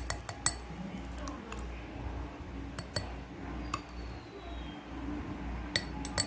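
A utensil clinking against glass dessert bowls while whipped cream is spooned onto mango puree: a few scattered sharp clinks over a low steady hum.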